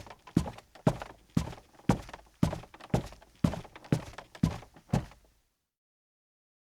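A man's leather-soled shoes walking at a steady pace on a creaky, rug-covered floor, about two steps a second. The steps stop a little past five seconds in, followed by dead silence.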